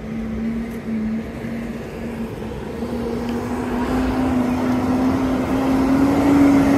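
A motor vehicle approaching and getting steadily louder, its hum slowly rising in pitch over a wash of street traffic noise.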